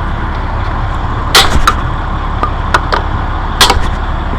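A truck engine's steady low rumble, with a few sharp clicks and knocks from parts being handled close by, loudest about a second and a half in and again near the end.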